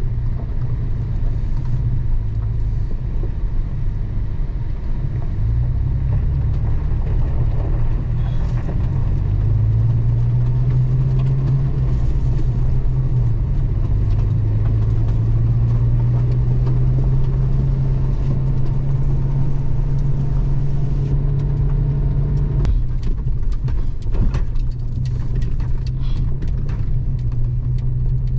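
2007 Toyota FJ Cruiser's 4.0-litre V6 engine and tyres on a dirt and gravel track, heard from inside the cab while driving. The engine note rises about a third of the way in as it picks up speed and drops suddenly near the end, followed by scattered gravel ticks.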